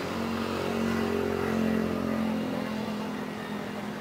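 A motor vehicle's engine passes close by, getting louder to a peak about halfway through and then fading.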